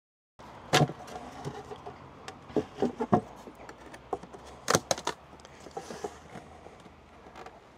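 Clicks and knocks from hands working the lid and clips of a beehive before opening it, with the loudest knocks about a second in and again near five seconds.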